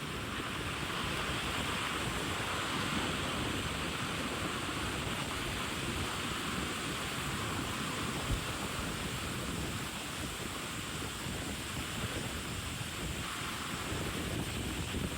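Wind and sea water rushing past a yacht under way on the open ocean, with wind buffeting the microphone: a steady rushing hiss over a low rumble.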